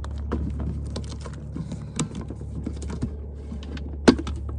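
Plastic bucket handle and snap-on lid clattering in a run of small clicks and rattles, then the lid pops off with a sharp snap about four seconds in.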